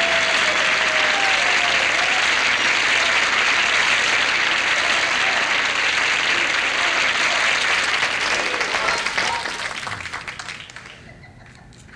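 Studio audience applause, steady and loud, that dies away over the last few seconds into a few scattered claps.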